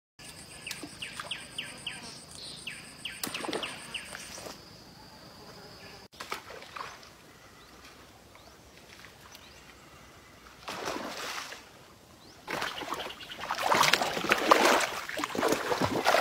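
Birds chirping in quick short calls over a steady high insect drone for the first few seconds, then loud bursts of water splashing and sloshing from a little past two-thirds through.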